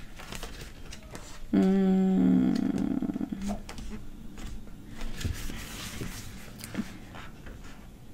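A woman humming a short, steady wordless 'hmm' about a second and a half in, over faint rustles and light taps of sticker sheets being handled.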